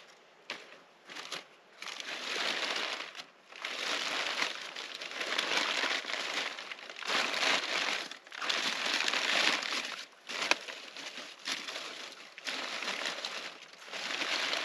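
Paper being crumpled and pushed into a stone fire ring as tinder among dry twigs, laying a campfire: a run of crinkling rustles, each a second or two long, with a few sharp snaps in between.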